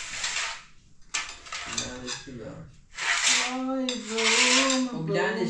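Plates clinking and scraping on a metal serving tray as they are set down and shifted, in short bursts at the start and again from about three seconds in. A child's high voice runs under the later clatter.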